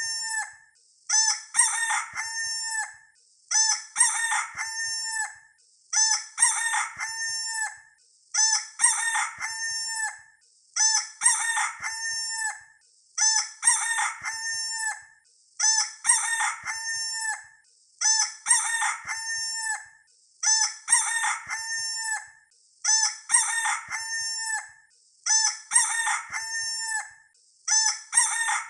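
Rooster crowing cock-a-doodle-doo, the same crow repeated over and over at an even pace of about one every two and a half seconds.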